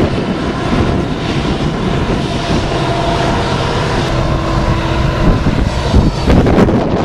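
Union Pacific SD70ACe diesel locomotive, an EMD two-stroke, running as a distributed power unit shoving a freight train up the grade, its engine working steadily with a high whine over it. Wind buffets the microphone in gusts near the end.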